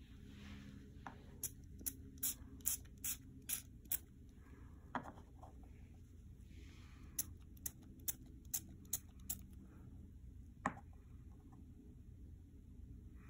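Short sharp clicks, about two a second in two runs of six or seven, with two stronger single clicks between them, over a low steady hum.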